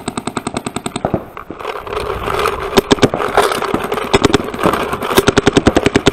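Paintball markers firing rapid strings of shots, about a dozen a second. The firing pauses about a second in, resumes, and is densest in the second half.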